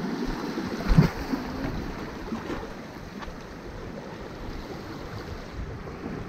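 Water washing and lapping against the rocks of a jetty, with wind on the microphone, and a dull knock about a second in.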